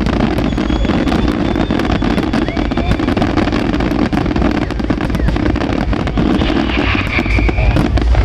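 Fireworks crackling continuously: a dense rush of many small, sharp pops with no pause.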